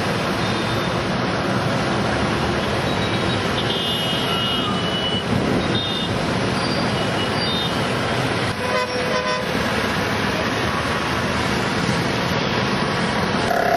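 Steady mixed city traffic from motorcycles, auto-rickshaws, cars and buses at a busy junction, with several short high-pitched horn toots a few seconds in.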